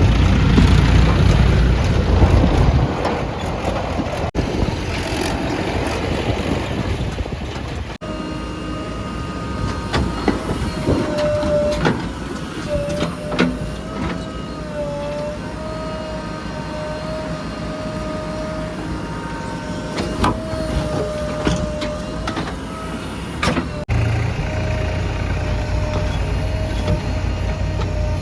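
Backhoe loader and tractor diesel engines running, with a heavy low rumble for the first few seconds. Later a wavering high whine, likely from the hydraulics working, rides over the engine, with scattered sharp clanks; the sound changes abruptly several times where clips are cut together.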